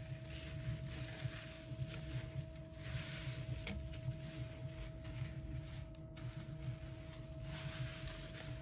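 A soaked sponge being squeezed and wrung by hands in rubber gloves in a sink of foamy cleaner solution. The suds squish and slosh in repeated swells, about one every second or so, over a faint steady hum.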